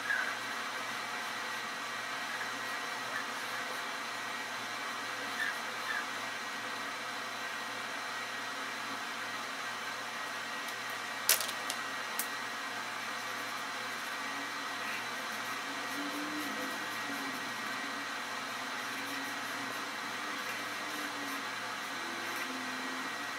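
Steady whirring background hum, with two sharp clicks about a second apart just past the middle, from a marker cap being snapped off or on.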